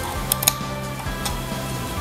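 Background music, with two sharp clicks about half a second in and a fainter one later, from metal air-rifle parts and a hand tool being handled while the air bottle clamp is fastened.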